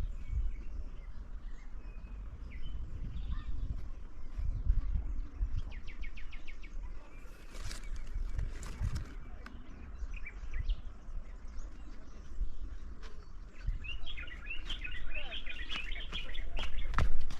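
Birds chirping intermittently, with a quick ticking trill about six seconds in and a dense flurry of chirps near the end, over a steady low rumble and scattered clicks.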